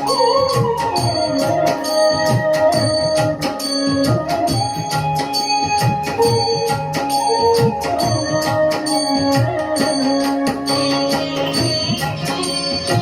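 Instrumental interlude of a Hindu devotional chant song: an organ-like keyboard melody of held notes over a steady percussion beat.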